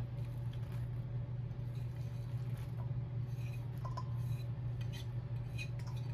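Faint, scattered clinks of kitchen utensils against dishes, a few times, over a steady low hum.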